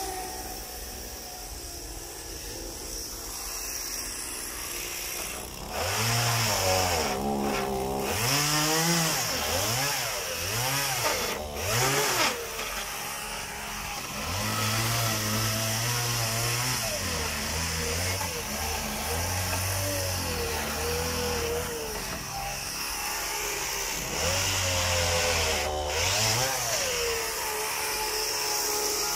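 Gasoline chainsaw idling, then revved up and down several times from about six seconds in. It is then held at full speed in stretches of a few seconds with drops in between, cutting through the wooden boards of shipping crates.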